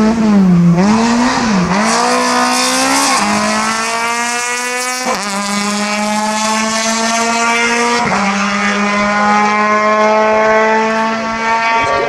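Citroën C2 rally car's four-cylinder engine at high revs. The revs dip and recover twice, then the car accelerates hard, the note climbing in each gear and dropping at upshifts about three, five and eight seconds in.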